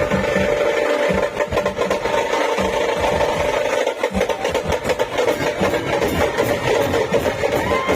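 Procession drumming: loud, uneven low drum beats over a steady droning tone and noisy clatter.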